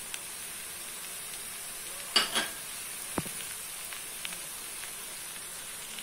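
Bitter gourd pieces frying with onion and spice masala in a pan, sizzling steadily. A sharp knock comes about two seconds in, and a fainter click about a second later.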